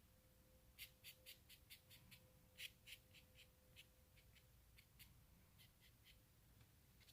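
A faint, irregular run of small dry taps or clicks, roughly three a second, starting about a second in and thinning out near the end.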